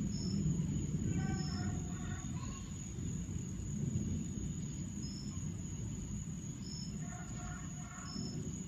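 Low rumble of thunder slowly dying away, under a steady high insect drone with short repeated chirps. Two brief pitched calls sound, about a second in and again about seven seconds in.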